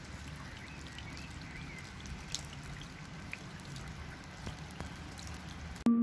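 Light rain falling, an even patter with scattered individual drops. A steady ringing tone starts suddenly at the very end.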